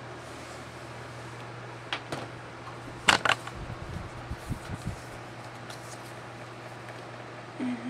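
A fan running steadily on low, with a few sharp clicks about two and three seconds in and softer knocks after them as makeup containers are handled.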